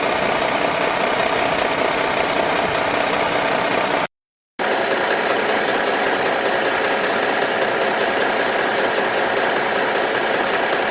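An engine running steadily at idle, an even mechanical drone, cut off to dead silence for about half a second about four seconds in before carrying on unchanged.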